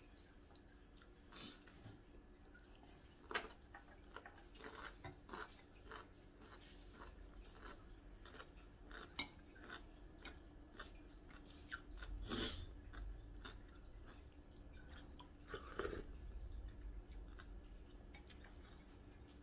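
Metal spoon and chopsticks clinking and scraping against a ceramic soup dish while someone eats, with quiet chewing. Light taps come every second or so, with a few sharper clinks.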